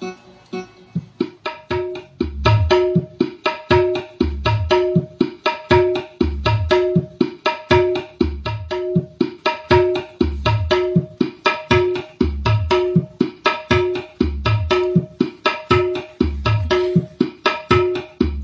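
Recorded music playing from a USB stick through a Jack Rodwell ZH-1002 mixing amplifier: a quick plucked-string melody over a drum rhythm, with deep bass beats coming in about two seconds in.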